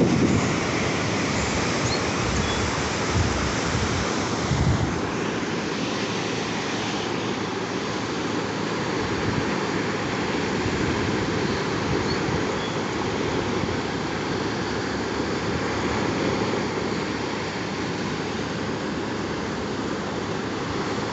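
Waves washing steadily onto the shore, with wind buffeting the microphone in a few low gusts during the first few seconds.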